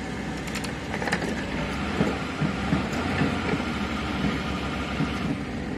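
A stuck bus's diesel engine running steadily, with a few sharp knocks about a second in.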